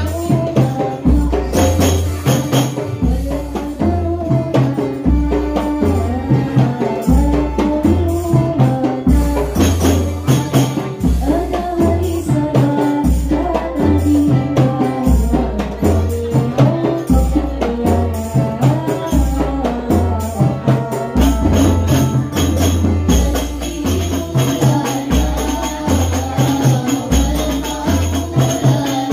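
Young female voices singing an Islamic devotional song through microphones, accompanied by classical rebana frame drums playing a steady rhythm of deep bass beats and sharp hand strokes.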